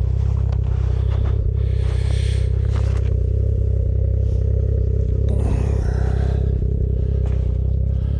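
Ski-Doo Expedition snowmobile engine running steadily, with scattered scraping and rustling sounds over it.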